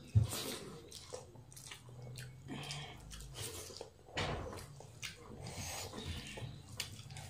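People eating with their hands: chewing, and fingers mixing rice and curry on steel plates, in irregular small clicks and rustles, with one sharp knock just after the start.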